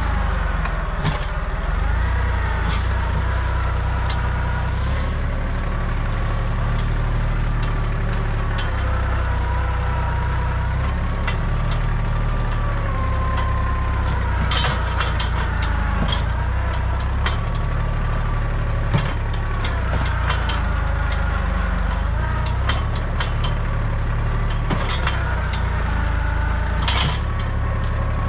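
Kubota compact tractor's diesel engine running steadily while working, with a whine that rises and falls in pitch over the engine. Sharp cracks of wood and branches snapping come now and then, in clusters about halfway through and near the end.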